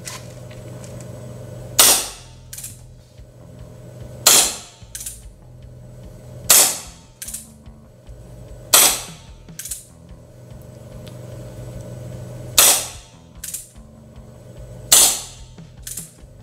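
CO2-powered Wingun Colt Single Action Army gel blaster revolver firing six shots, two to four seconds apart, through a chronograph to measure velocity. Each shot is a sharp pop followed under a second later by a fainter click.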